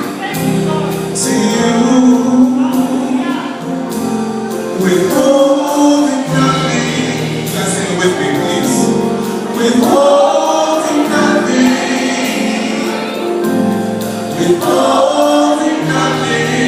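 Live gospel band and choir performing a worship song: voices singing together over keyboard, bass and drums with a steady beat.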